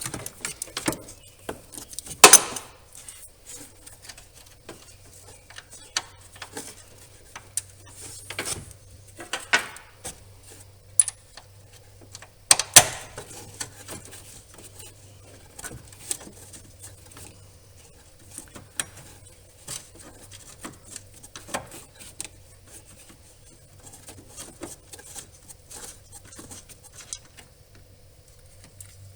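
Irregular metallic clicks and clinks of hand tools on the small 10 mm nuts and bolts that hold the fan control module, as they are worked loose. Two sharper knocks, about two and twelve seconds in, stand out.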